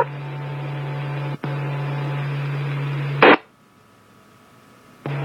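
Radio scanner on a fire dispatch channel with the transmitter still keyed after the voice message: steady hiss with a low hum. A little over three seconds in, a short burst of noise as the transmission drops, then it goes quiet until the channel keys up again near the end.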